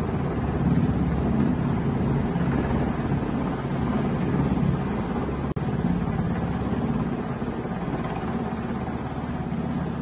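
MH-60R Sea Hawk helicopter's main rotor and twin turboshaft engines running as it hovers and draws away, a steady low rotor noise that slowly fades. A momentary dropout about five and a half seconds in.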